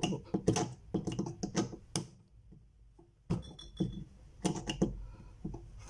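Pliers clicking and scraping against the metal retaining tabs of a picture frame as they are pressed down over the hardboard backing. A quick run of sharp clicks over about two seconds, a pause, then two shorter clusters.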